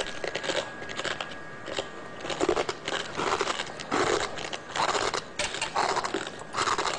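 Glass of a neon lamp tube being bitten and chewed, a run of irregular crunches and crackles that grow louder about halfway through.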